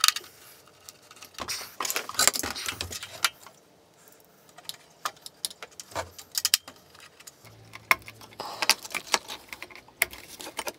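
Irregular metallic clicks, clinks and rattles of hands working on an Anycubic i3 Mega 3D printer's steel base: an Allen key in its screws, parts handled and set down, and a cable connector pushed in near the end.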